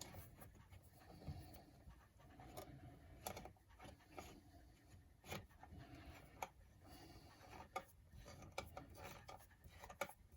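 Faint scattered clicks and light scraping of a hand hex driver turning a screw into an aluminium brace on an RC car chassis.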